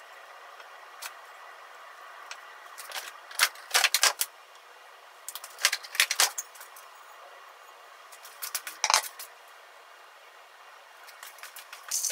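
Light clinking and rattling of kitchen items being handled and set down, in three short clusters a couple of seconds apart.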